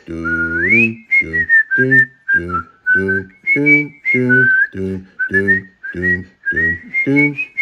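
A person whistling a tune, with gliding notes including a quick upward swoop about half a second in, over a steady accompaniment of low notes beating about twice a second.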